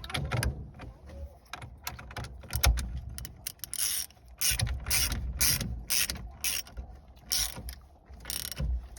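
Hand tool being tightened down on a steering column to press a part back, giving an irregular run of sharp metal clicks and ratchet-like ticks.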